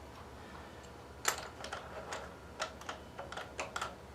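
Irregular light metallic clicks and taps, a few a second, starting about a second in, from the gear on a Fay & Scott lathe's apron being worked up into mesh until it is snug.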